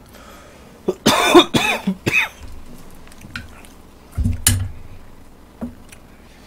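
A man coughing several times in quick succession and clearing his throat, about a second in. About two seconds later comes a single sharp knock.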